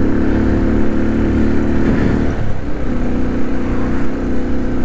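Motorcycle engine running steadily while riding, with a low rumble underneath. The engine note dips briefly about halfway through and then picks up again.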